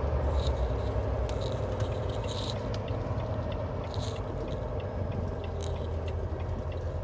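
Semi-truck engine idling, a steady low drone heard from inside the cab in stopped traffic, with a few small clicks and rustles in the cab.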